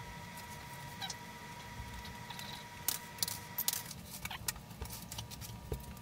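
Faint handling noises of objects being moved on a table: scattered clicks and rustling. Under them a faint steady high whine stops about four seconds in.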